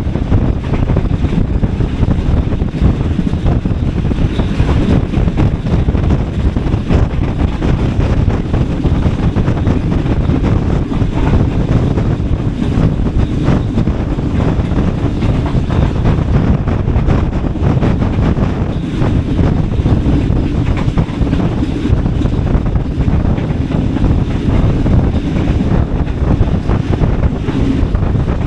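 Awam Express passenger train running along the track, heard from aboard: a steady rumble of wheels on rails mixed with rushing air buffeting the microphone.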